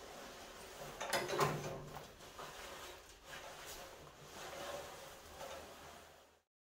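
Stiff bristle brush scrubbing dirt and loose rust off a rusted 1948 GMC pickup's steel tailgate in a run of irregular scraping strokes, the loudest about a second and a half in. The sound cuts off abruptly near the end.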